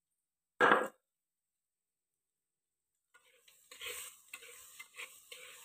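A single sharp knock about half a second in, then, from about three seconds in, a metal ladle stirring and scraping eel meat in a clay cooking pot over the fire, in uneven strokes with a steady sizzle behind them.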